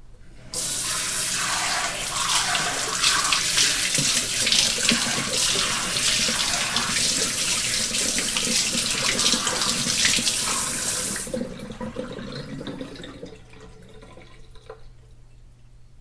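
Water sprayer sending out a continuous hissing jet of water that starts about half a second in and cuts off suddenly after about eleven seconds. A fainter water sound then fades away over the next two seconds.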